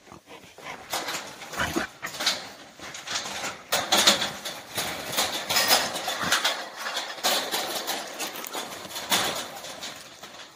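Wild boars trapped in a steel-mesh cage trap calling and jostling, with repeated irregular knocks and rattles throughout.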